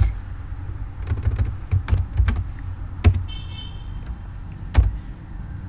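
Typing on a computer keyboard: scattered, irregular keystrokes.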